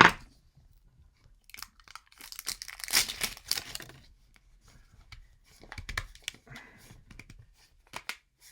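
A sharp knock right at the start, then the packaging of a Funko Paka-Paka blind container being torn and crinkled open by hand, with the longest tearing about two to four seconds in, more rustling later, and a couple of clicks near the end.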